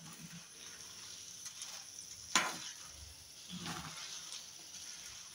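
Dried red chillies being stirred in hot oil in a frying pan with a spatula: a faint, steady sizzle with soft scraping, and one sharp tap about two and a half seconds in.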